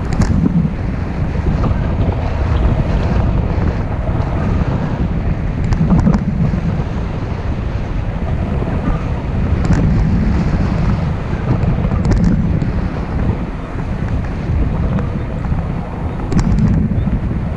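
Wind buffeting the microphone: a steady, heavy low rumble that swells and eases, with a few light clicks.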